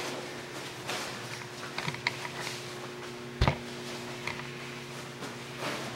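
GE microwave oven running with a steady low hum while it cooks, with a single sharp knock about halfway through.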